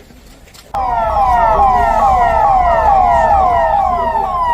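Emergency vehicle sirens, more than one at once, each repeating quick falling wails that overlap. They start abruptly about a second in.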